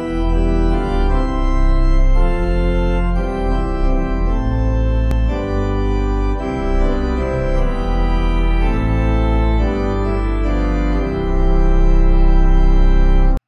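Organ music: held chords that change every second or two over a deep bass, cut off abruptly near the end.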